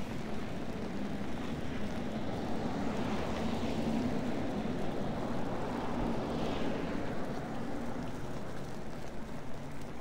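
Steady road-traffic noise from a snow-covered city street, an even rushing hiss with a low hum running under it.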